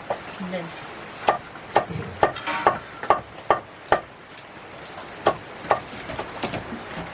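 A series of sharp, irregular clicks and knocks, roughly two a second, over a low background, with a faint voice-like sound briefly about half a second in and again between two and three seconds in.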